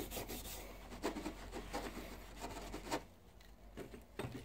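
Coarse Scotch-Brite abrasive pad scrubbing rust off a tool-steel block in rapid back-and-forth strokes, stopping about three seconds in.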